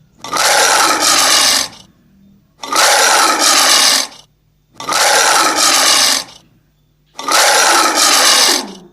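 A lion roaring, four harsh roars of about a second and a half each with short pauses between them, from a sound-effect recording.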